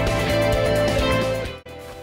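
Background music that cuts off abruptly near the end, leaving quiet room tone.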